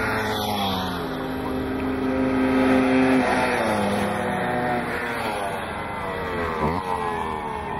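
Several NSU Quickly mopeds' small two-stroke single-cylinder engines buzzing at race speed, overlapping at different pitches that slide down as they pass. About two-thirds of the way through, one engine's pitch dips sharply and climbs again.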